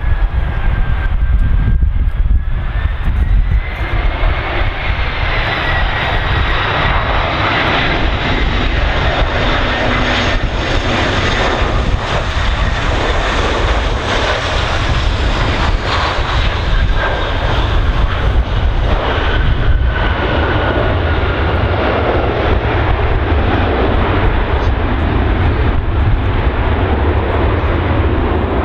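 Airbus A319-112 airliner's CFM56 turbofan engines on landing: a steady jet whine with a thin high tone that bends slightly upward. The sound grows louder and fuller as the jet passes close and touches down about halfway through, then settles into a continuing rumble as the whine fades during the rollout.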